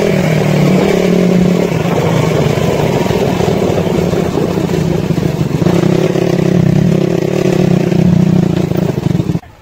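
Motorcycle engine running at a steady low pitch as the bike rides slowly over paving, then stopping abruptly near the end.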